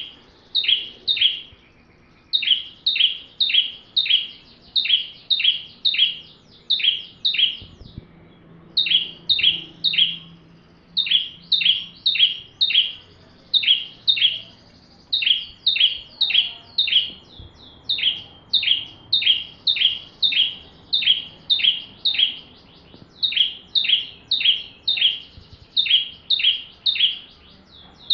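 A ciblek (prinia) singing non-stop: a rapid series of sharp, high, downward-slurred notes, two or three a second, in long runs broken by brief pauses about two, eight and fourteen seconds in.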